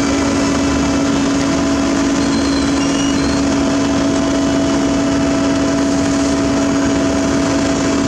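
Sumitomo HA60C asphalt paver running, heard up close at its hopper and conveyor: a loud, steady machine drone with one strong steady tone.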